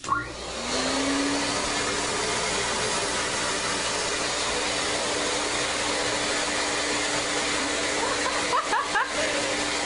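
Vacuum cleaner running steadily, a constant motor hum under an even rushing noise, with a few brief faint squeaks about eight seconds in.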